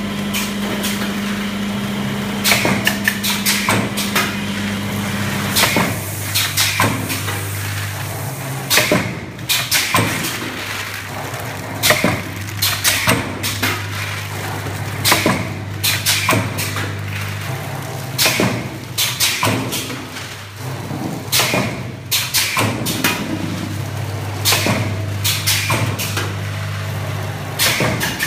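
Vertical form-fill-seal pouch packing machine with a multihead weigher running through its cycle: a steady low hum under clusters of sharp mechanical clacks that repeat about every three seconds.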